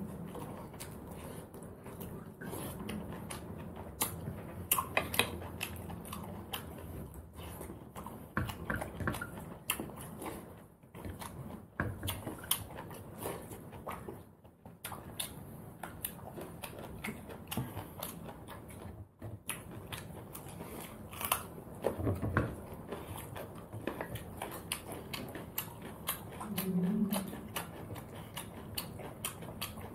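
Close-up chewing, with wet mouth clicks and smacks, as a man eats mutton curry and rice with his fingers. A brief hum comes near the end.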